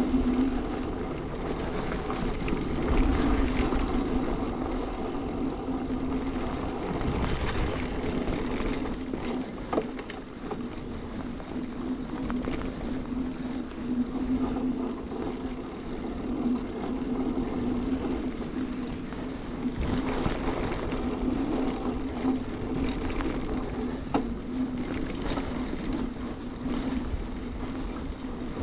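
Mountain bike rolling along a packed-dirt forest track: a steady hum with hiss, rising and falling a little with the ride, with a few sharp clicks along the way.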